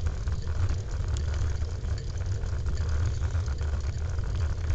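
Wind buffeting the microphone of a moving bicycle, a steady low fluttering rumble, with a faint hiss above it from riding on the wet road.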